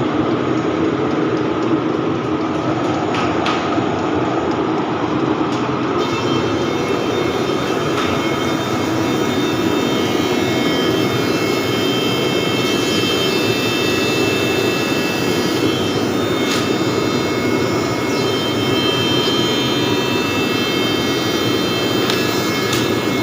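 Woodworking surface planer running steadily with a loud, even machine noise; about six seconds in its sound turns brighter, with thin high whining tones added.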